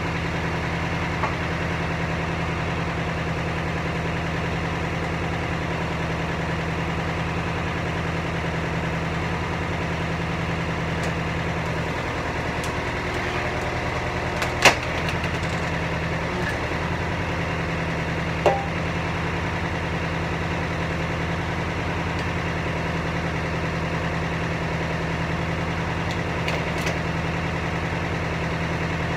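Tractor engine idling steadily while driving a hydraulic log splitter, with a few sharp knocks, the loudest about halfway through.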